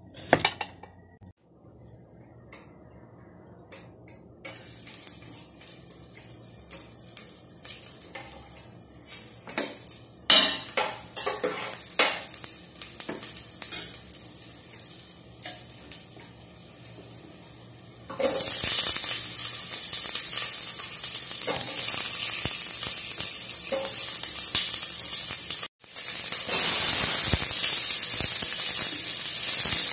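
Garlic sizzling faintly in hot oil in a stainless steel pot, with a few sharp metal clinks. About eighteen seconds in the sizzle turns much louder and steady once chopped onions and tomatoes are in the pot and a metal ladle stirs them: the sauté (gisa) stage of a sinigang.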